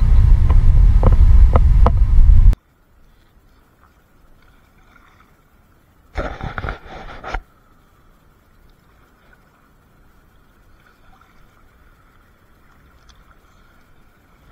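Wind buffeting an outdoor camera microphone on a paddled kayak, a loud low rumble with a few knocks, cut off suddenly about two and a half seconds in. After that comes faint moving water around the inflatable kayak, with one louder sound lasting about a second midway.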